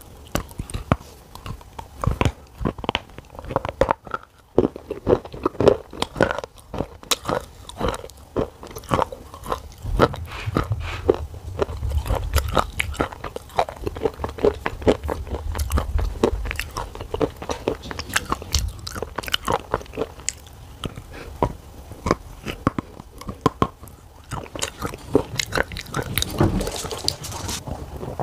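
A person biting and chewing a hard slab of black shale clay: pieces snap off with sharp crunches, followed by many close, crunchy chews.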